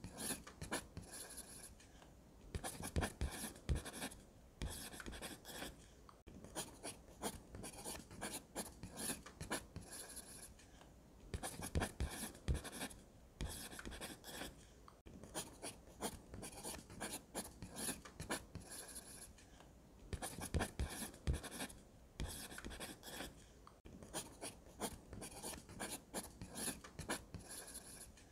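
Pencil scratching across sketchbook paper in many short strokes, coming in bursts of a few seconds with brief pauses between.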